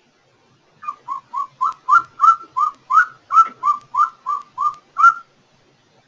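Golden eagle call: a wimpy series of about fourteen short, thin yelps, roughly three a second. The call starts about a second in and stops about a second before the end.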